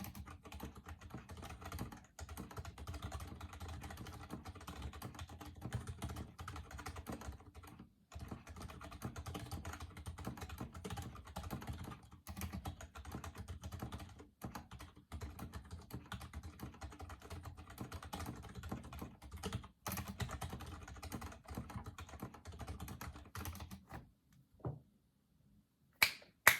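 Continuous typing on a custom mechanical keyboard fitted with Gazzew Boba U4 silent tactile switches and PBT cherry-profile keycaps, in a foam-dampened case, giving soft, muted key strokes with brief pauses. The typing stops about two seconds before the end, and a short, loud sound follows just before the end.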